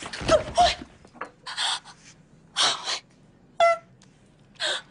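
A man's short, ragged gasping breaths, some with brief strained moans, about one a second: a stabbed man fighting for breath as he dies.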